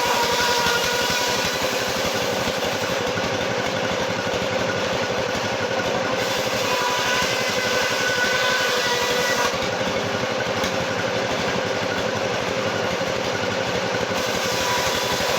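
Sawmill machinery running steadily: an engine with a fast, even pulse and a constant hum.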